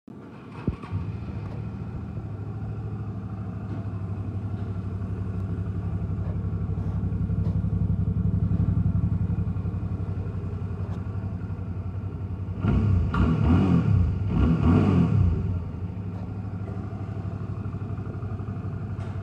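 2007 Suzuki DL650 V-Strom's 645 cc V-twin engine starting about half a second in and settling into a steady idle. About two thirds of the way through, the throttle is blipped twice, short louder revs, before it drops back to idle.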